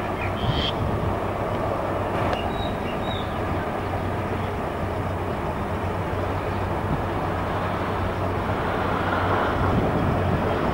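Electric suburban train on the line, a steady rumble with a low hum.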